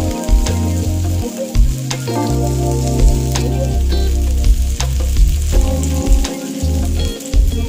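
Paneer tikka skewers sizzling in oil on a grill pan as they are turned, with sharp clicks now and then. Background music with a changing bass line plays underneath.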